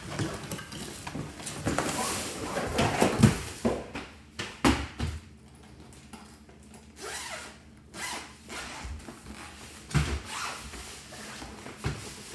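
A portable grill table in its fabric carrying bag being slid out of a cardboard box and handled: scraping and rustling of cardboard and fabric, with a few dull thumps as the bag is set down on a wooden floor.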